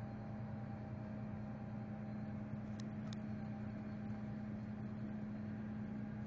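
Tractor engine running steadily, heard from inside the cab as a constant low drone. Two short clicks come near the middle.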